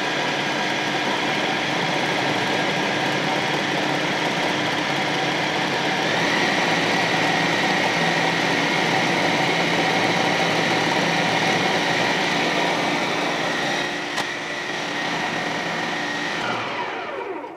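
AEG food processor motor running on low speed, blending roasted cauliflower and garlic with cream into a mash. The steady whine shifts a little about six seconds in, drops briefly near the end, then winds down as the machine is switched off.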